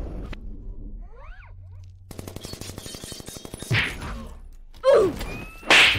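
Film action sound effects: a few short rising whines, then a fast rattle of clicks for about a second and a half, then three heavy impacts. The last impact, near the end, is the loudest.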